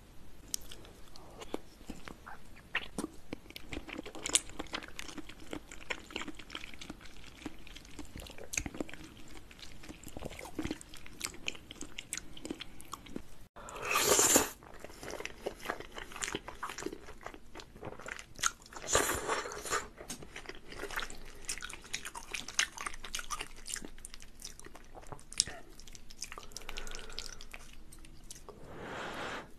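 Close-miked ASMR eating: chewing of soft blue jelly candy, then, after a cut about halfway, a man slurping and chewing sauce-coated blue fettuccine, with two louder slurps right after the cut and again about five seconds later.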